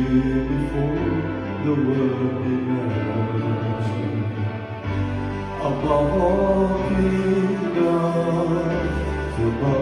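Church worship team singing a praise song, several voices over electronic keyboard chords and held bass notes.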